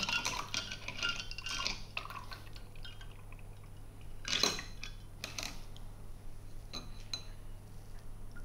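A cocktail poured from an ice-filled mixing glass through a small hand strainer into a glass tumbler. Liquid splashes and trickles for the first couple of seconds, then ice cubes clink a few times against the glass and strainer.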